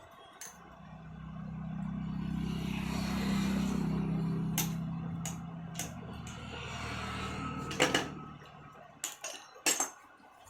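Electric drill motor running with a steady low hum that swells and then fades away, with a few sharp knocks of handling near the middle and end.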